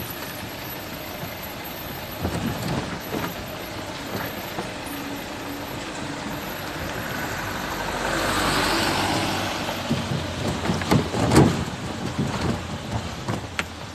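Vehicle driving slowly over a wet, potholed road, heard from inside the cabin: steady engine and road rumble with knocks and rattles as the wheels drop into potholes. The knocks come about two to four seconds in and again in a cluster between ten and twelve seconds, the loudest about eleven seconds in, with a swell of rushing road noise around eight seconds.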